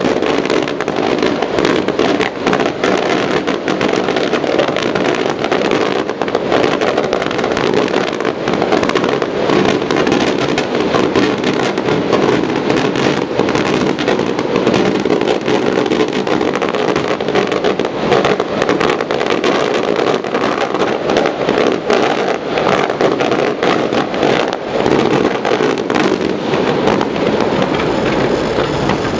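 Fireworks going off in a dense, continuous barrage: many bangs and crackles in rapid succession with no break.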